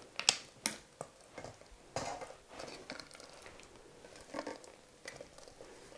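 Hot apple compote being scraped out of a stainless steel saucepan with a silicone spatula onto a sponge cake base: scattered soft wet plops and light taps of the spatula against the pot, at irregular intervals.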